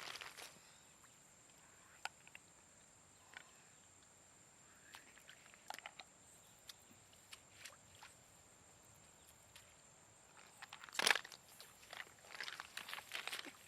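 Sporadic soft rustles, crunches and clicks, with a louder rustle about eleven seconds in followed by a run of crackling, over a thin steady high-pitched whine.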